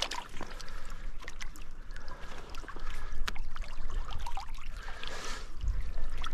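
Shallow stream water splashing and sloshing, with scattered small clicks and knocks.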